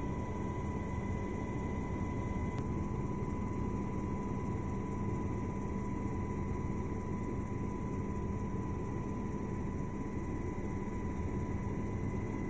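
Military helicopter in flight heard from inside the cabin: the engine and rotor make a steady low rumble with a faint steady whine above it.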